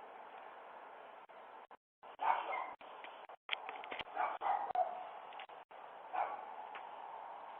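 A dog barking a few times, heard through a video doorbell's microphone.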